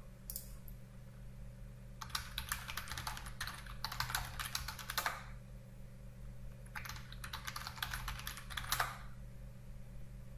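Typing on a computer keyboard in two quick runs of key clicks, the first about two to five seconds in and the second about seven to nine seconds in, over a faint steady low hum.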